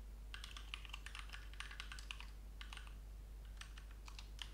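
Typing on a computer keyboard: faint, quick, irregular key clicks in short runs with brief pauses between them.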